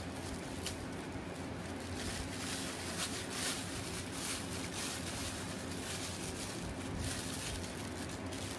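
Thin plastic bag crinkling and rustling in irregular crackles as it is untied and pulled open by hand, over a steady low background hum.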